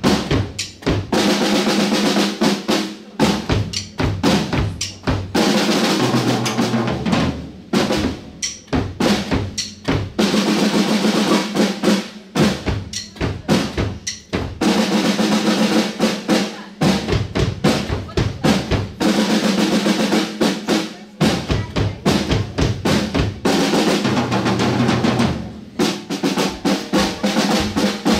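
Acoustic Tama drum kit played live: fast snare and tom strokes over the bass drum, in dense phrases broken by short gaps every few seconds.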